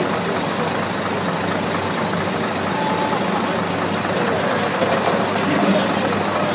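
Heavy engine idling steadily, a low even hum.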